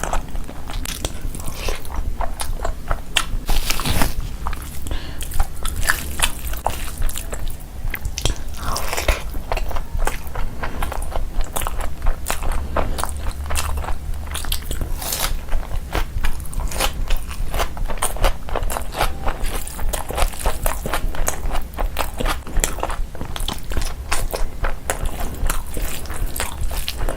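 A person eating close to the microphone: continual chewing with many quick, sharp crunches and bites.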